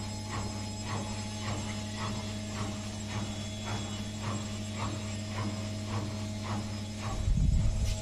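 Indesit front-loading washing machine running a wash: a steady motor hum with a quick, regular series of short chirps, about two to three a second, as the drum turns. A louder low rumble comes in near the end.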